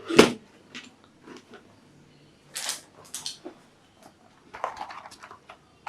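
Keyboard box packaging, cardboard and paper, handled while it is searched by hand: a series of short rustles and knocks, the loudest just after the start.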